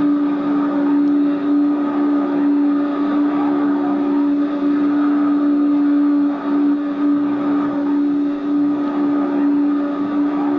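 A 1500 W vacuum cleaner running, its motor giving a loud, steady hum.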